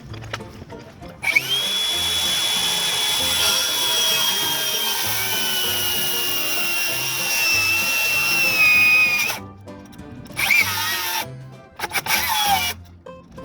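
Electric power saw starting about a second in and cutting a 45-degree cut through a wooden fascia board, its high motor whine sagging slowly in pitch under the load for about eight seconds before stopping. Two short further runs follow near the end.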